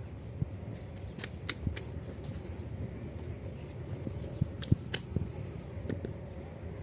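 Scattered light clicks and knocks over a steady low hum, the loudest knock a little under five seconds in.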